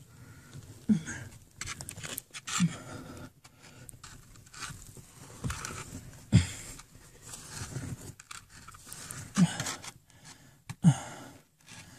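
Fingers scraping and brushing loose sandy earth off a tunnel wall, in short scratchy strokes, with a few short breaths in between.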